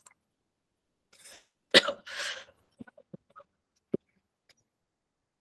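A single harsh cough a little under two seconds in, followed by a few faint clicks.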